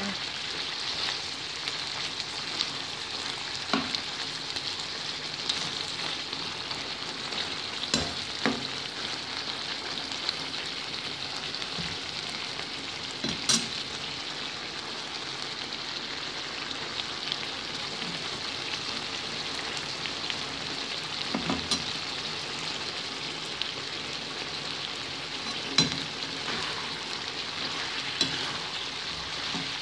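Mutton liver adobo sizzling steadily in a pan, simmering in a little of its own sauce, stirred with a slotted spatula that clicks against the pan now and then.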